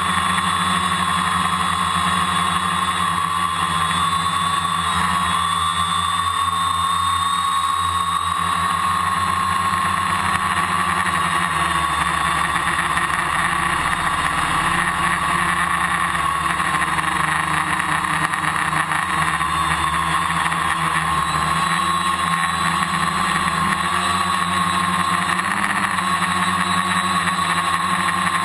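Electric motors and propellers of a multirotor camera drone in flight, heard up close from its onboard camera: a steady whine over a lower hum, the pitch wavering slightly as the motors change speed.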